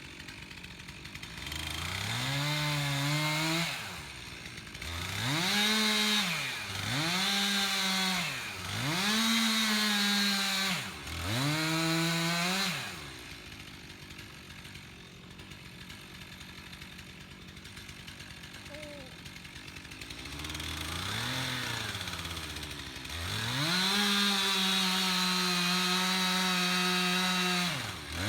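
A two-stroke chainsaw revving in four short throttle bursts, then idling for several seconds, then held at steady full throttle for about five seconds as it cuts into the tree trunk. The pitch dips briefly right at the end.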